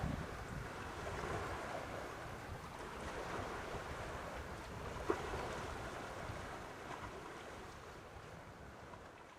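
Wind buffeting the microphone over lake water lapping, with a single sharp tap about five seconds in; the sound fades out near the end.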